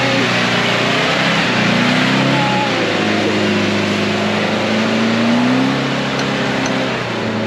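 Four-wheel-drive engine working hard while towing a twin-axle caravan through deep mud, the revs rising twice in long pulls and easing off near the end, over a steady rushing noise.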